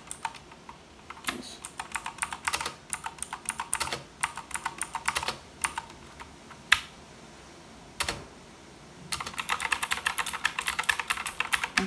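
Typing on a Marvo Scorpion KG901 mechanical keyboard with clicky blue switches: a run of key clicks, a pause with a single loud clack about seven seconds in and another near eight seconds, then a fast burst of typing toward the end.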